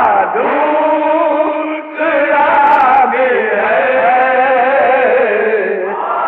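Men's voices chanting an Urdu nauha, a Shia mourning elegy, in long, wavering held notes. An old recording with dull, narrow sound.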